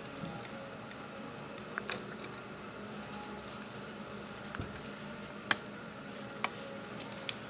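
Small handling sounds from hand-sewing a stuffed fabric toy with needle and thread: a few short sharp ticks, the loudest about five and a half seconds in, over a steady low hum of room tone.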